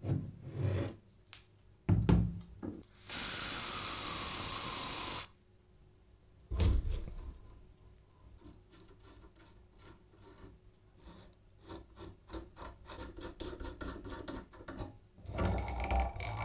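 A few knocks, then a spray can hissing for about two seconds with a tone that falls in pitch. After another knock, a long run of quick clicks and metal scrapes as a 13 mm wrench works a rusty nut off a scooter wheel's axle thread, with a louder handling rattle near the end.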